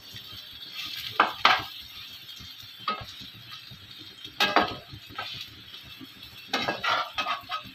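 Spatula scraping and knocking against a non-stick frying pan as an egg omelette with bread is turned, over a steady sizzle of frying egg. There are separate scrapes about one, one and a half, three and four and a half seconds in, and a quick run of them near the end.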